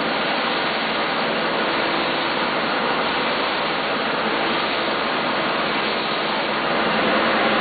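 Combination belt/disc sander running with a piece of wood held against the abrasive: a steady, even sanding hiss.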